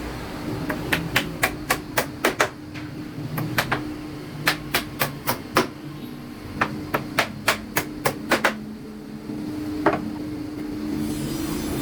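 Hammer blows in several quick runs of about four strikes a second, with one last single blow near the end, over a steady low hum.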